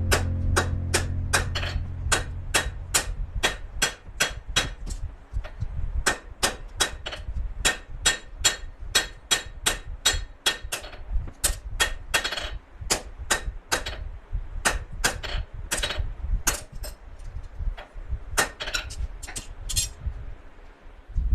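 Hand hammer striking hot coil-spring steel on an anvil, about two to three ringing blows a second with a few short pauses, drawing down a knife blade. A low hum fades out over the first couple of seconds.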